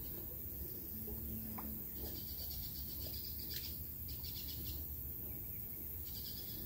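Faint, high-pitched trilling calls of small wild animals in three short bouts, over a low steady rumble.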